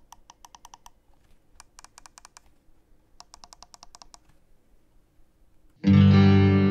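Side buttons of a Roccat Nyth gaming mouse clicked under the thumb in three quick runs, about eight clicks a second. Near the end, loud distorted electric-guitar music comes in suddenly.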